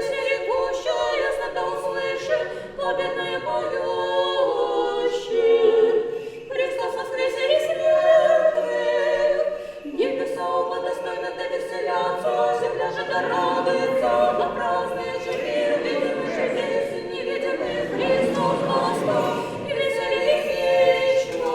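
Russian Orthodox church choir singing a paschal hymn a cappella, several voices in harmony with long held notes.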